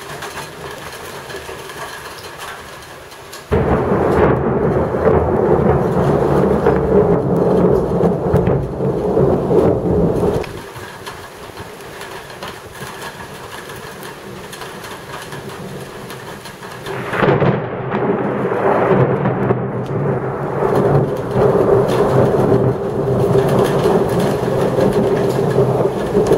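Thunderstorm with steady rain, broken by two long rolls of thunder. The first starts suddenly about three and a half seconds in and lasts some seven seconds; the second starts about seventeen seconds in.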